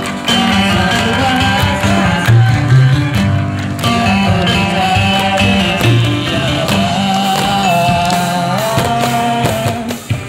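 Live music: a choir singing held notes over a band with guitar and bass, with percussion struck with sticks on old paint buckets.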